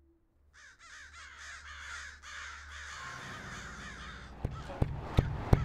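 A flock of crows cawing in a dense, continuous chorus. About four and a half seconds in, a steady run of sharp knocks begins, about three a second, over a low rumble.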